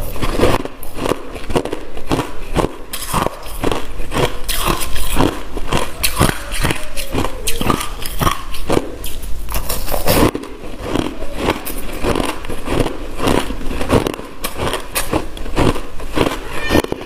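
Close-up biting and chewing of packed, frosty crushed ice: a dense, irregular run of crisp crunches and crackles.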